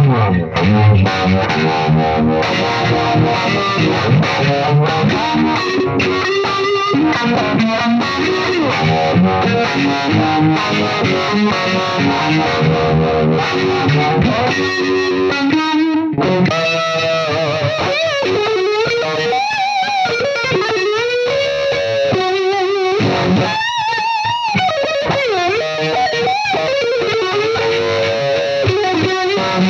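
Distorted electric guitar played through a Roger Mayer Voodoo-Vibe, a Uni-Vibe-style vibe pedal. The held notes waver in pitch with the pedal's sweep, most plainly in the second half.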